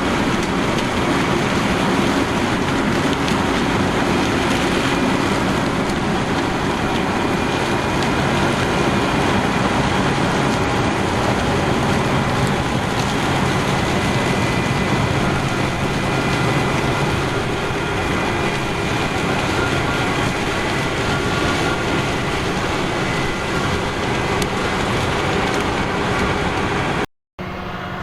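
Heavy farm harvesting machinery running steadily: a loud, dense engine drone with a few steady tones in it. It cuts out for a moment near the end, then goes on more quietly.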